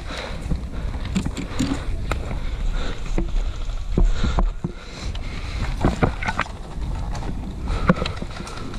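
Footsteps through brush and dry leaves, with gear rustling and knocking at an irregular pace, over a low rumble of handling and wind noise on the helmet-mounted microphone.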